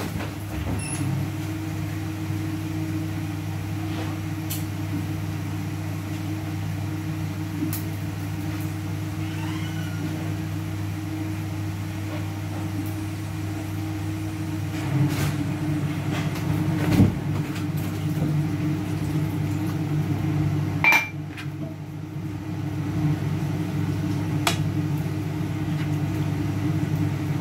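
Steady hum of a kitchen appliance's electric motor, with a few light knocks and clicks, the loudest about 17 seconds in.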